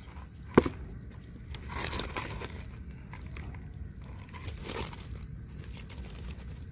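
Mesh keep net rustling and crinkling as it is handled and lifted in a plastic bucket of water, with a sharp knock about half a second in.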